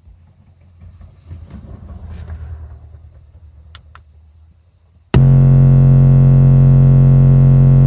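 Car subwoofers driven hard by an amplifier playing a steady 45 Hz test-tone burp, starting suddenly about five seconds in and very loud, heavily distorted with many overtones. Before it, only a quiet low rumble and a couple of faint clicks.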